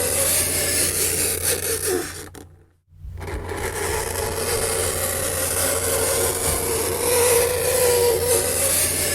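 Fingernails scraping across a chalkboard: a harsh scratching with a wavering squeal. It fades out to a brief break about two and a half seconds in, then starts again.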